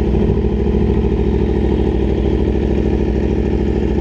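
Aprilia sportbike engine idling steadily at close range, with an even low pulse and no revving.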